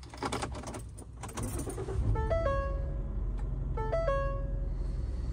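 Ignition keys jangling in a Ford car, then the engine starts and idles with a steady low rumble. A short stepped electronic tone figure sounds three times over it, about every second and a half.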